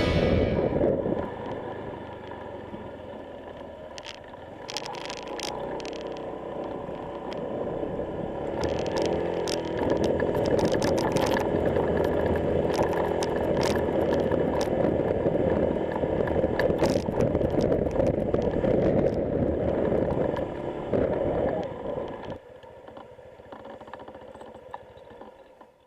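Honda PCX150 scooter's single-cylinder engine running, with scattered clattering and scraping over it. The sound grows louder a few seconds in and drops away about 22 seconds in.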